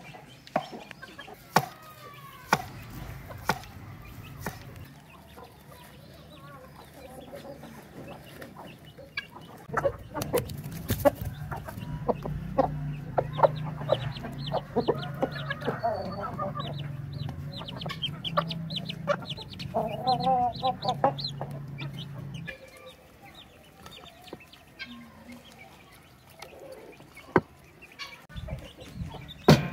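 Chickens clucking, with scattered sharp knocks and clicks and a low hum from about ten seconds in until a little past the two-thirds mark.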